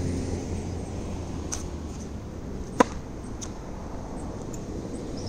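Tennis racket striking a ball on the court, one sharp pop about three seconds in, with a couple of much fainter ticks of ball bounces or strokes before and after it. A steady low rumble runs underneath.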